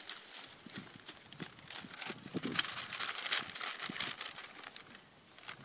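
Dry grass stems being cut with hand shears and pulled up by hand: an irregular run of crackling rustles and sharp snips, busiest around the middle.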